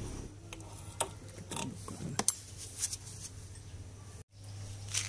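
Scattered light metallic clicks and knocks of tools and loose engine parts being handled while a motorcycle engine's side cover area is stripped down, over a low steady hum. The sound breaks off briefly about four seconds in.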